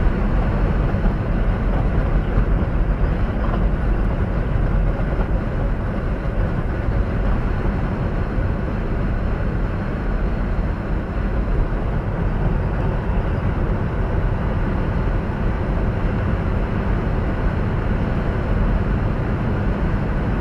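Steady low drone of a semi-truck's engine and tyres at highway speed, heard from inside the cab.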